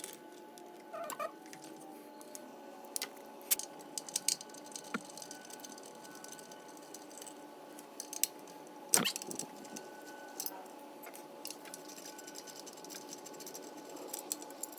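Scattered clicks, taps and light rattles of hand work on a Briggs & Stratton engine as the air cleaner box over the carburettor is taken off, with one louder knock about nine seconds in, over a faint steady hum.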